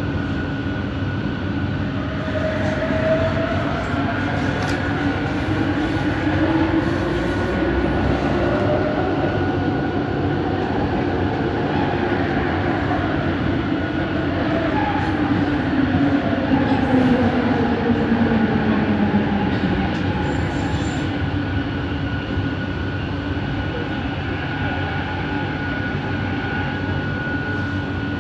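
Interior of a moving Kelana Jaya Line Bombardier ART Mark II metro car: the linear induction motors make a whine that glides up and down in pitch, over a steady high tone and continuous running noise.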